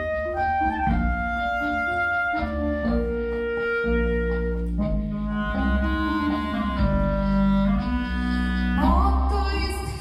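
Clarinet playing a slow line of held notes over a steady low drone.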